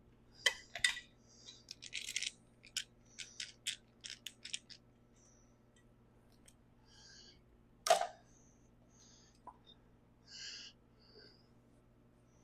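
Hand tools and small metal parts clicking and clinking while a Stihl MS270 chainsaw is taken apart: a quick run of sharp clicks in the first few seconds, one louder clank about eight seconds in, and a few soft scrapes.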